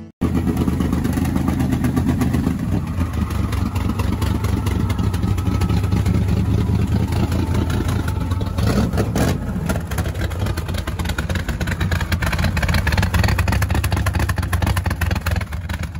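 Classic 1967 Ford Mustang's engine running, with one short rev about nine seconds in.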